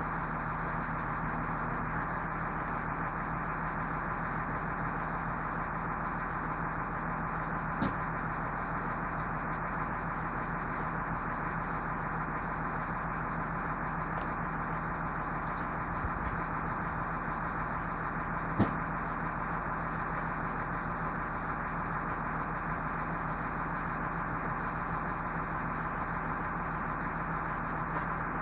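A work truck's engine idling steadily, with two short sharp knocks, about eight and nineteen seconds in.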